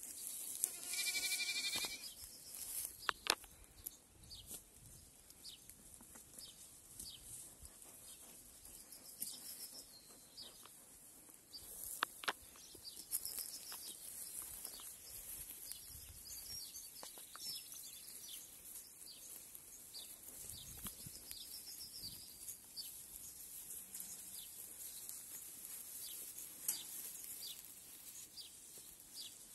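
A goat kid bleats once, a single drawn-out call of about a second and a half. Faint high bird chirps and a few sharp clicks follow.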